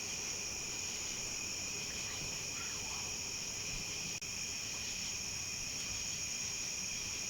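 Steady outdoor insect chorus, crickets and similar insects trilling continuously in two high, unbroken pitches.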